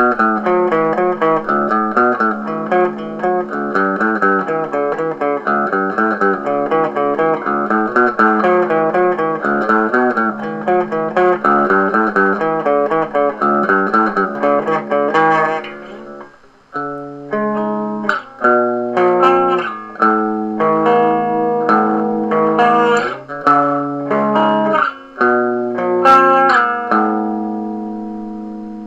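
Electric guitar played through a small practice amp, in a lighter tone than heavy distortion. The first half is a fast, steady run of picked notes; after a brief break about halfway through, it turns to slower, ringing chords and single notes, with one left to fade near the end.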